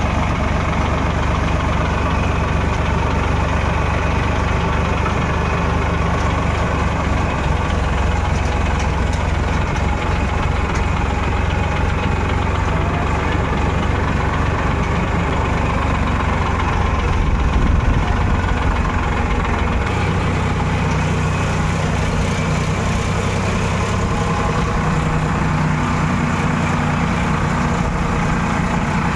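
Farm tractor diesel engine running steadily while the tractor drives across a field. The engine note shifts slightly about twenty seconds in.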